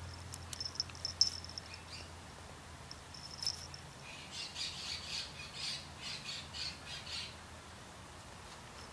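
Birds chirping: a few short high chirps, then a quick run of about nine notes, about three a second, starting about four seconds in.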